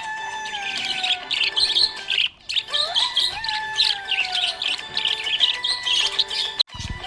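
Budgerigars chirping and twittering rapidly and continuously over background music with slow falling melodic lines. The sound cuts out briefly near the end.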